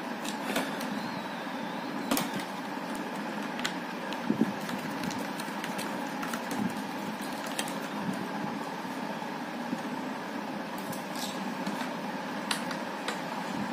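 Scattered light plastic clicks and taps as the plastic peak of a Vega off-road full-face helmet is handled and its peak bolt is fitted by hand, over a steady background hum.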